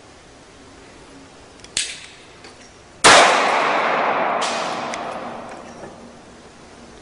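A shot from an Ekol Agent blank-firing gas pistol about three seconds in, a sharp crack followed by a long fading echo. A shorter, quieter click comes about a second before it.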